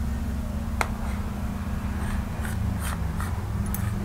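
A knife cutting through a soft steamed finger-millet dhokla, making light scratchy scrapes and clicks as the blade meets the steel plate, with one sharper click just under a second in. A steady low hum runs underneath.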